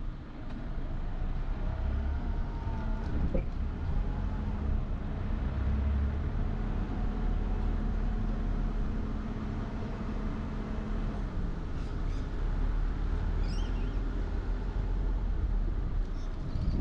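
Car driving along a road: a steady low rumble of engine and tyres, with a low hum that fades out about two-thirds of the way through.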